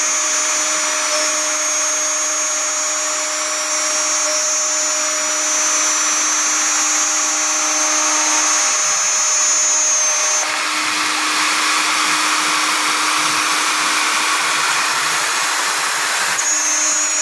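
CNC router spindle running at high speed and cutting an aluminium composite (Alucobond) panel: a steady high whine over cutting noise. About ten seconds in the whine drops away and the cutting noise alone carries on; the whine comes back near the end.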